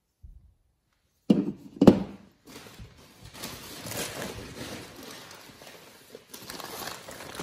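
Two sharp knocks about a second in, like hard objects set down on a table, then packing paper rustling and crinkling as a wrapped china piece is pulled from a box and unwrapped.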